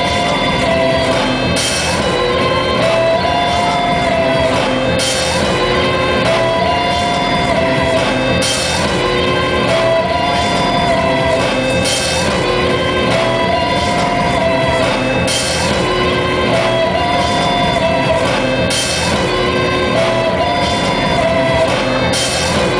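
Live instrumental music from electric guitars played through effects pedals: sustained droning tones under a looped melodic phrase that repeats about every three and a half seconds, with a brighter hit at the start of each repeat.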